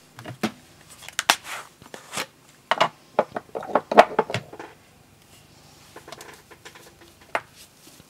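Tabletop craft-handling noises: a quick run of clicks, taps and paper rustles, busiest in the first half, then a few scattered clicks.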